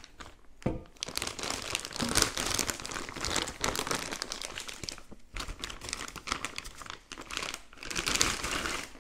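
Clear plastic bag wrapped around a carbon-fibre tripod crinkling and rustling almost without pause as it is handled and pulled off, with a few brief breaks.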